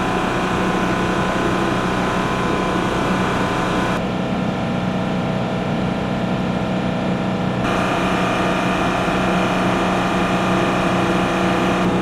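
Loud, steady machinery drone with several steady whining tones and a strong low hum, its upper range changing abruptly about four and seven and a half seconds in.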